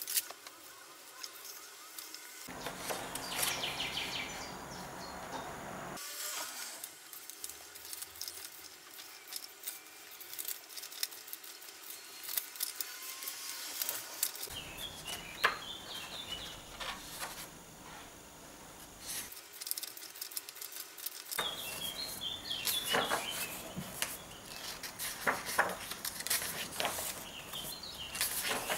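Hands rubbing and leafing through the paper pages of a thick handbound book on a wooden table, with birds chirping faintly in the background several times in the second half. The background noise jumps abruptly in level a few times.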